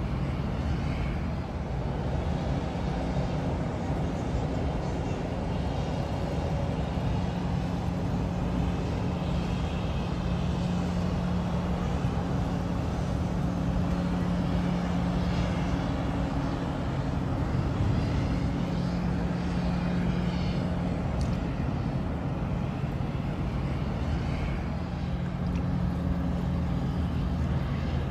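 Steady low engine drone with several humming tones over a haze of distant traffic-like noise.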